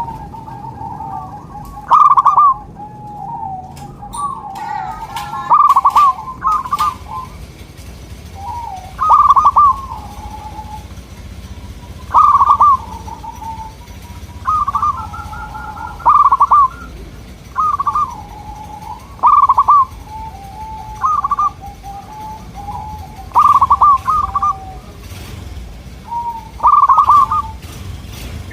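Zebra doves (local perkutut) cooing. Loud, stuttering coo phrases come about every three to four seconds, each followed by softer, lower trailing coos. Around the middle, two calls overlap.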